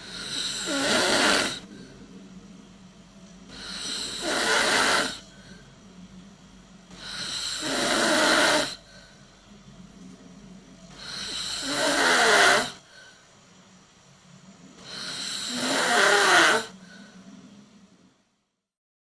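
A person snoring in a steady rhythm: five snores about four seconds apart, each building in loudness and then cutting off sharply.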